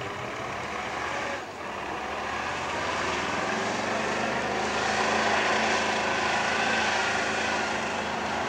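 Heavy trial truck's diesel engine labouring under load as it crawls across a steep slope, a steady drone that grows louder as the truck nears over the first few seconds, then holds.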